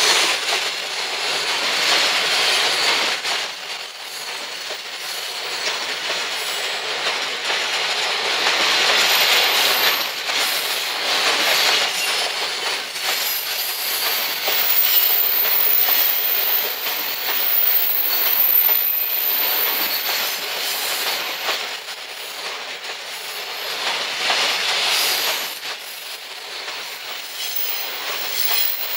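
A freight train of empty Koki container flatcars rolls past close by, its steel wheels clattering rhythmically over the rail joints. A thin high-pitched whine rises over the rolling noise through the middle stretch.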